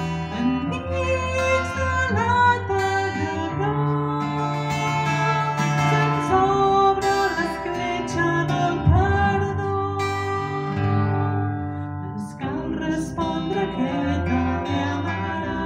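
Live guitar music: two guitars plucked and strummed, under a melody of long held notes that slide up into pitch as they start.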